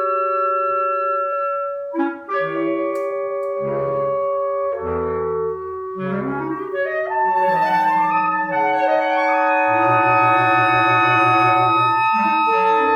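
Instrumental concert music: long held wind tones in several layered lines, with notes shifting every second or so and a fast pulsing low note starting about ten seconds in.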